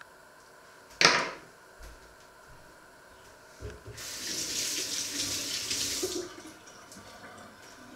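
A sharp knock about a second in, then a kitchen tap runs for about two seconds and is shut off abruptly.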